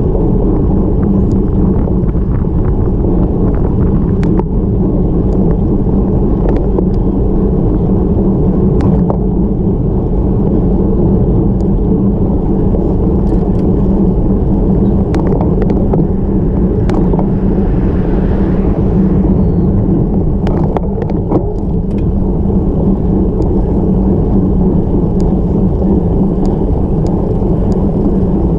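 Steady wind rumble and road noise on a camera riding on a road bicycle climbing at about 20 km/h, with scattered small clicks.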